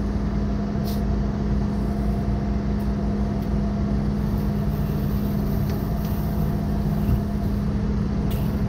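Heavy truck diesel engine running at a steady speed, with strong wind noise on the microphone.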